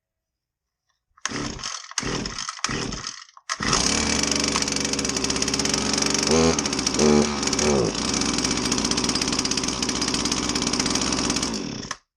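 Husqvarna 322R brush cutter's small two-stroke engine being pull-started: a few short bursts on the recoil starter pulls, then it catches about three and a half seconds in and runs, revving up briefly twice before it stops near the end.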